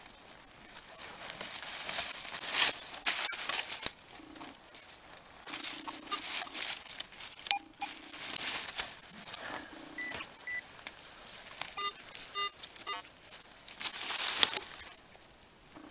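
Hand digger scraping and cutting through soil and dry leaf litter. Between the scrapes come short low signal tones from the Garrett AT Pro metal detector as its coil passes over the hole, then a quick run of higher electronic beeps about twelve seconds in from a pinpointer probing the hole. The target gives only a weak sound and no reading, which marks it as very deep or very small.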